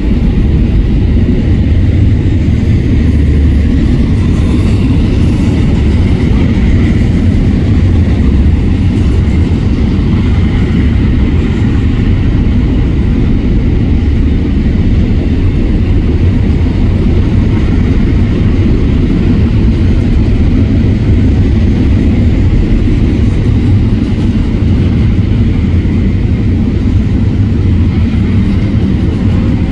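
Union Pacific intermodal freight train rolling past at speed, a loud steady rumble of wheels on rail.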